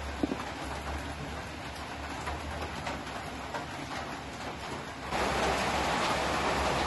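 A low steady hiss with a light tap near the start, then about five seconds in a louder, even pouring sound as thick leche flan custard (eggs, condensed and evaporated milk) is poured from a bowl into a metal tube pan.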